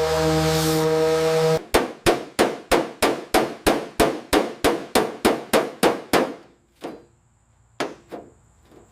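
Music that stops about a second and a half in, then a hammer striking metal in a quick, even run of about sixteen clanging blows, roughly three a second, followed by two more single blows.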